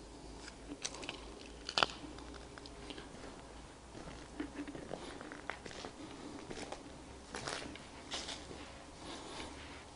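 Footsteps crunching over dry leaves and debris, with irregular sharp crackles and clicks, the loudest about two seconds in.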